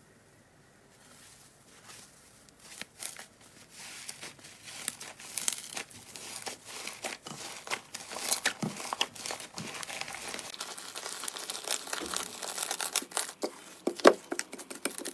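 Slime being squeezed and handled, making dense crackling and popping clicks that start after a quiet second or two and grow busier and louder.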